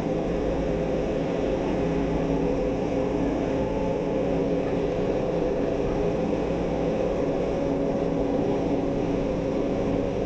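Steady running noise inside a Manila MRT-3 train car moving between stations: an even rumble with a constant motor hum.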